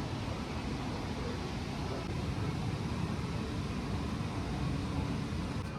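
Steady rushing roar of a river flowing below the mill.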